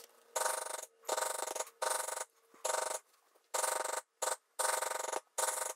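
Lightweight maul rapidly tapping a Barry King steep-edge beveler into tooling leather, in about eight short bursts of quick strikes with brief pauses between as the tool is walked along the carved line.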